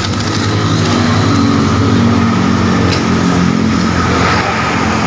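Road traffic going by: steady noise of passing vehicles, with a heavier engine humming past, loudest around two seconds in.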